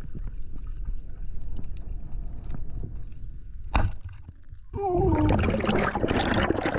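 Muffled underwater water noise heard through a diving camera, a low rumble with scattered ticks and one sharp crack just before the middle. From about five seconds in, a much louder rush of bubbling, gurgling water with a wavering tone in it takes over as the diver nears the surface.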